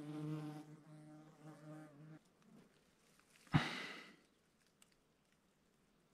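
A flying insect buzzing close by, a steady hum that stops about two seconds in. About a second and a half later comes a single thump with a short rustle, the loudest sound here.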